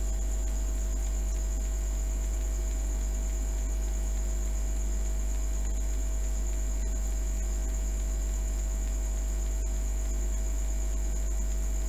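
Steady electrical mains hum, low and constant, with a thin high-pitched whine on top.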